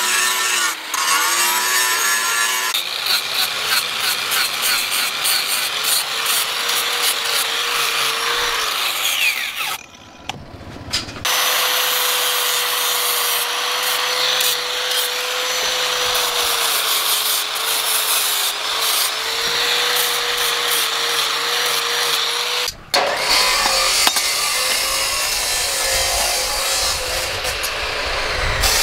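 Electric angle grinder running at steady speed, its abrasive sanding disc grinding the rust and scale off a steel axe head: a steady motor whine under a harsh rasp of disc on metal. The sound breaks off briefly about a third of the way in, and changes abruptly near the end, where the grinder's whine drops out and only a rough noise remains.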